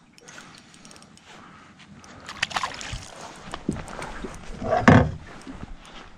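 Knocks and scuffs of handling in a small fishing boat as a landing net is picked up off the carpeted deck, with a louder thump about five seconds in.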